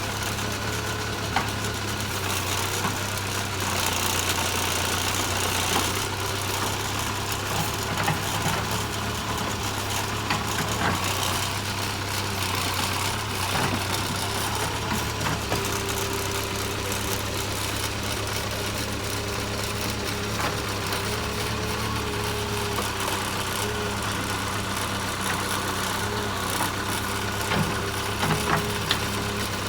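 Backhoe loader's diesel engine running steadily at a constant speed, with a few short knocks near the end.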